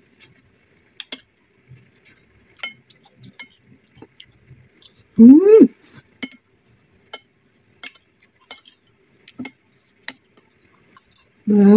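Metal spoon clinking and scraping against a ceramic plate, a scatter of small sharp clicks. About five seconds in, a short vocal sound from the eater rises and falls in pitch; another starts right at the end.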